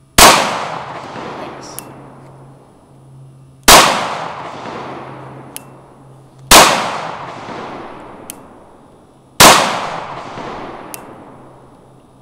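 FN 509 Tactical 9mm pistol fired four times in slow, deliberate fire, roughly one shot every three seconds. Each loud shot is followed by a long fading echo and a faint click about a second and a half later.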